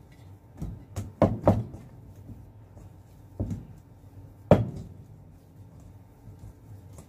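Dough being kneaded by hand in a stainless steel mixing bowl, the bowl knocking dully on the counter: a quick run of three knocks about a second in, then single knocks at about three and a half and four and a half seconds, the last the loudest.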